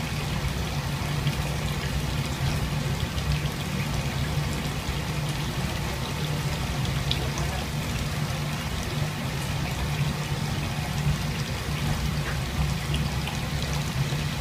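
Gas wok burner running steadily under a large wok of water heating toward the boil, with a low, even rush and faint bubbling and small ticks from the water.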